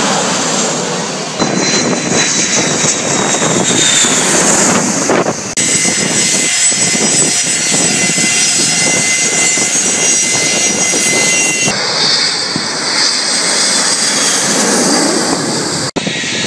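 Jet airliner engines in several short cut-together clips: a loud rushing pass of an airliner landing low overhead, then jet engines running on the runway with a steady high whine over the noise.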